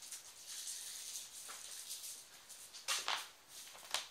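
Rustling and scuffing as a flat-screen TV is handled on a chest of drawers, with a few louder sharp scuffs about three seconds in and again near the end.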